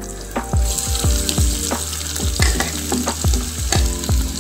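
Sliced onions tipped into hot oil and ghee in a frying pan, sizzling as they hit. The sizzle starts about half a second in and then holds steady.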